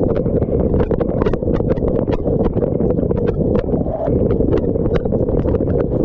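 Dishwasher wash spray heard from inside a GoPro's waterproof housing: a dense, muffled rush of water with irregular sharp taps as jets and droplets strike the case.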